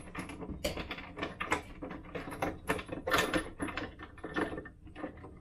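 Irregular light metallic clicks and rattles of a carriage bolt, spacers and nut being fitted by hand through a balance bike's front fork dropout against a plastic rocking base.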